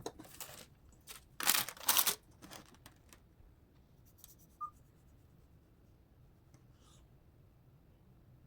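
A few short tearing, rustling sounds, the loudest two about one and a half and two seconds in, followed by quiet room tone with a couple of faint clicks.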